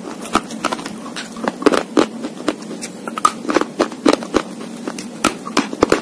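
Close-miked crunching of a slate bar being bitten and chewed: a steady run of sharp, irregular crunches and crackles, several a second.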